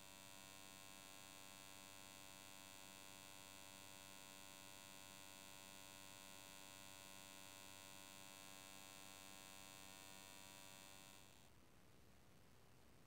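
Faint steady electrical hum with a high buzzing whine, starting at once and cutting off about eleven seconds in.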